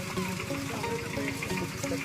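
Background music: a melody of held notes stepping from pitch to pitch over a steady beat.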